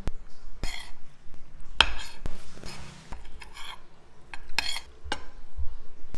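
Metal spoon and fork scraping and clinking against a plate of rice while eating: several short scrapes and clinks a second or so apart.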